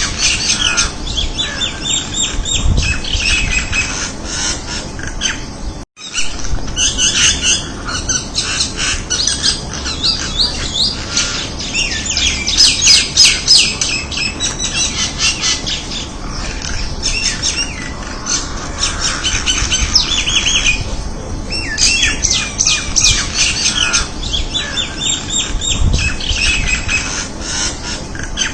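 Crested myna (Acridotheres cristatellus) calling: a dense, unbroken run of rapid, high-pitched chattering notes. The calls cut out for a split second about six seconds in, then carry on.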